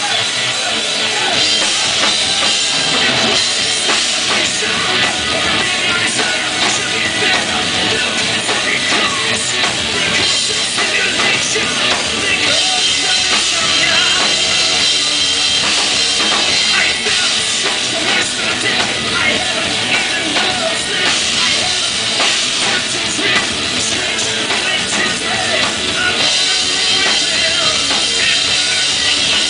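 Rock band playing live at full volume: drum kit with bass drum and distorted electric guitars, loud and steady.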